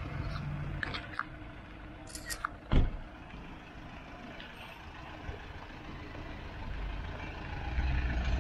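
Ford Transit Mk6 recovery truck's engine idling with a steady low hum, with a few light clicks and one sharp knock about three seconds in.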